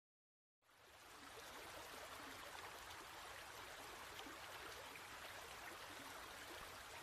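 Faint, steady rush of flowing river water, fading in under a second in.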